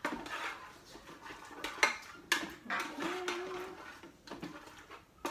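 A utensil stirring and scraping in the stainless-steel inner pot of an Instant Pot, with several sharp clinks of metal on metal, the loudest a bit under two seconds in.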